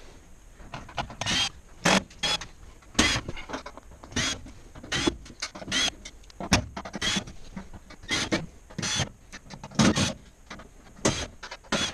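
Milwaukee cordless drill/driver running in short bursts with a high whine, again and again, as it backs sheet-metal screws out of a range's steel back panel.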